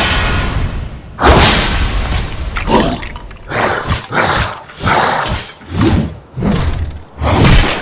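Designed skeleton-monster sound effect: an aggressive creature growling and roaring in a string of loud bursts, mixed with heavy thuds and breaking impacts as it attacks.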